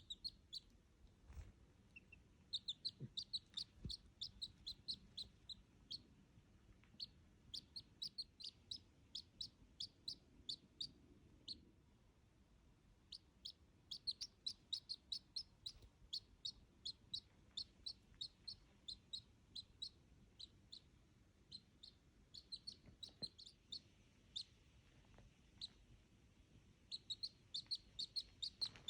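Duckling peeping: runs of short, high peeps, several a second, with a couple of brief pauses.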